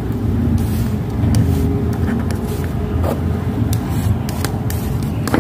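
A steady low rumble, with a few light clicks and taps as hand tools are picked up and handled on the workbench.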